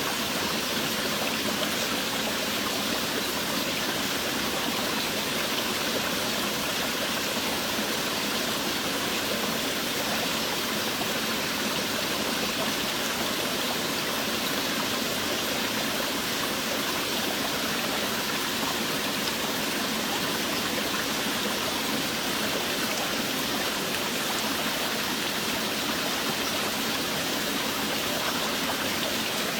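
Steady, heavy rain: a dense, even hiss with no breaks or separate drops standing out.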